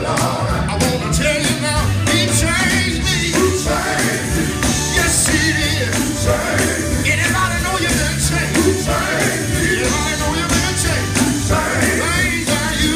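Live male gospel vocal group singing at microphones with a band, steady bass line and drum beat underneath.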